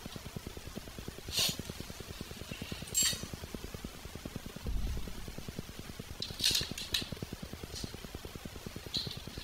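Short metallic clinks and rattles as a dirt bike's brake pedal and its mounting hardware are handled and fitted by hand. There are about five of them, a second or two apart, with a dull thump near the middle, over a steady fast low ticking hum.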